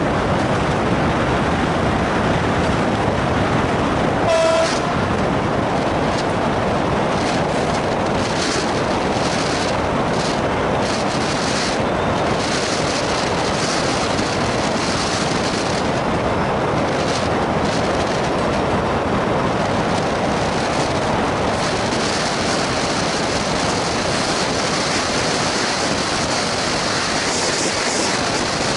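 Class 66 diesel locomotive hauling a freight train, its engine and running gear heard from a car keeping pace alongside, under steady road and wind noise. A short horn toot sounds about four seconds in.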